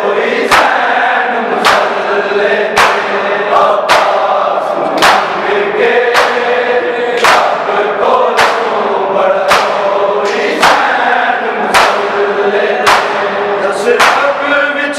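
A crowd of mourners beating their bare chests with their hands in unison, one sharp slap about every second, while many men's voices chant a Punjabi noha lament in time with the strokes.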